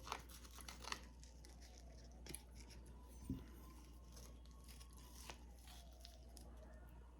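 Faint, sparse crisp cracks and crackles of tortilla chips being bitten and chewed, with a few sharper crunches over a quiet background.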